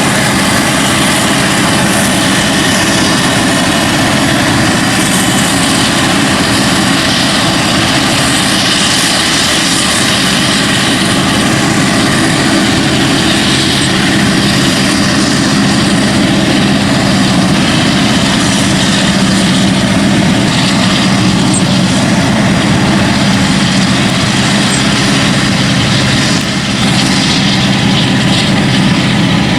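Maize forage harvester and tractors at work: a loud, steady heavy engine drone.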